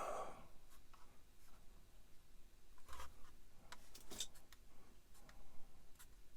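Faint scratching and a few light clicks from small parts and tools being handled on a workbench, the clearest about three and four seconds in.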